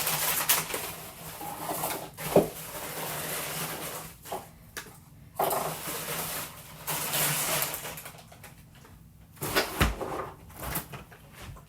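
Food containers and plastic packaging rustling and clattering as items are pulled out of a small refrigerator, with a sharp knock about two and a half seconds in and another near ten seconds.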